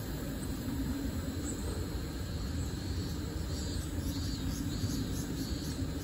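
Steady low outdoor rumble, with a faint run of short high chirps repeating a little over once a second from about halfway in.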